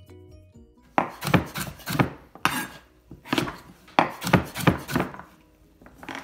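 Large kitchen knife chopping peeled swede (Scottish 'turnip') into chunks on a wooden chopping board: a run of sharp cuts through the firm root and onto the board, about a dozen in two bursts with a short pause between them.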